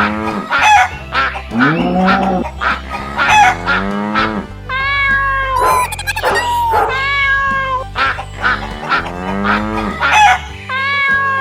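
Novelty background music with comic honking, quack-like calls over a steady beat and bass line.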